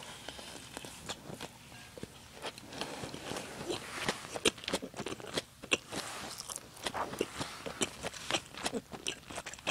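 Close-miked chewing of a mouthful of smoked salmon and rice: an irregular run of soft, wet mouth clicks.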